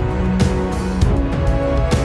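Background music with a steady beat: sustained pitched notes over regular percussion strikes about twice a second.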